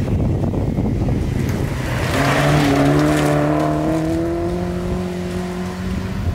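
A rally car passing close by on a gravel stage: its engine pulls hard under load, with gravel and tyre noise loudest as it goes past about two seconds in. The engine note holds and rises slightly as the car pulls away. Wind rumbles on the microphone throughout.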